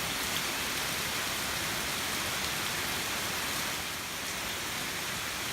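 Heavy rain pouring steadily, an even hiss with the occasional sharper drop tick.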